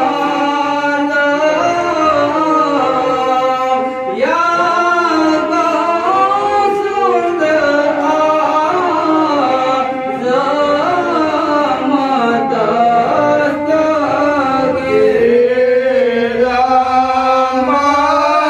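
A man singing Islamic devotional verses into a microphone, in long held notes that bend up and down, with short breaks between phrases.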